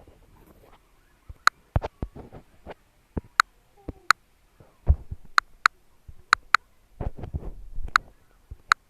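A smartphone's short touch-feedback clicks, about nine of them at irregular intervals as the screen is tapped, mixed with dull bumps from the phone being handled.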